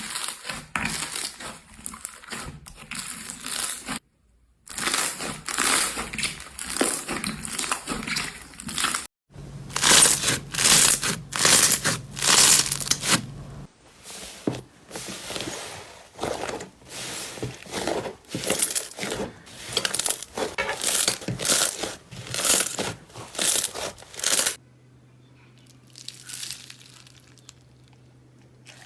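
Slime being squeezed and pressed by hand, giving dense, rapid crackling and crunching. Short silent breaks fall between clips, a faint low hum runs under some of them, and the crackling thins out to a quiet, sparse patch near the end.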